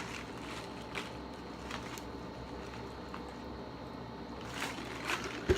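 Faint handling of book-order packaging: a few light clicks and crinkles over a low steady room hum, with a short soft thump near the end.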